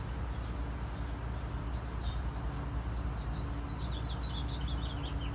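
A small bird chirping outdoors: one chirp about two seconds in, then a quick run of short descending chirps near the end, over a steady low background rumble.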